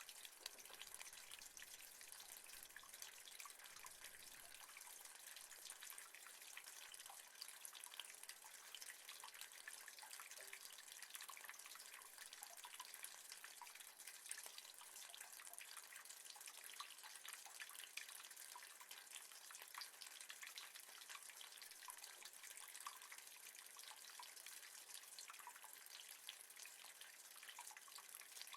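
Rain falling on metal: a faint, steady, dense patter of countless small drop ticks over a soft hiss.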